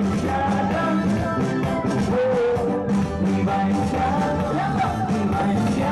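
Live band music with a male singer's melody over a steady beat and guitar, amplified through PA speakers in a crowded room.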